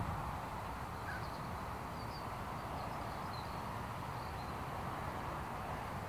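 Steady outdoor background noise, a low rumble under an even hiss, with a few faint, high bird chirps from about a second in.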